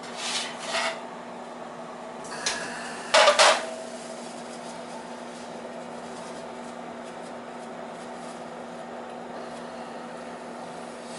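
Metal sheet pan holding a baking dish pulled from the oven and set down on a gas range's cast-iron grates: a few scrapes and knocks, the loudest about three seconds in with a short metallic ring. A steady hum runs underneath.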